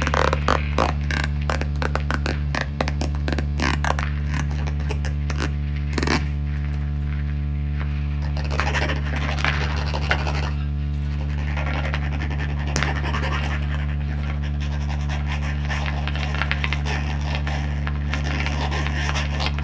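Improvised experimental electronic music: a steady low drone under scratching and scraping sounds, with a dense run of sharp clicks for the first six seconds or so, then rougher, noisier scraping.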